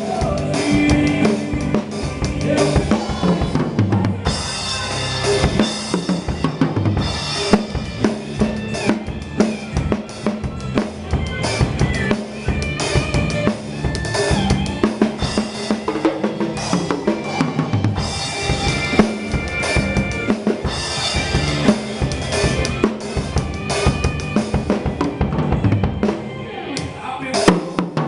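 Forró gospel music with the drum kit to the fore: steady bass drum and snare with rimshots, over pitched instruments.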